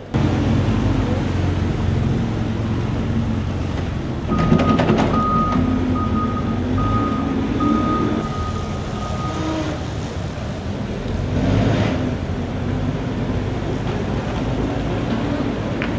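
A large vehicle's engine running steadily, with a reversing alarm beeping repeatedly for about five seconds in the middle.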